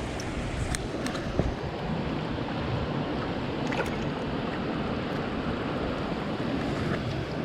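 Steady rushing noise of moving water and wind, with a few faint clicks.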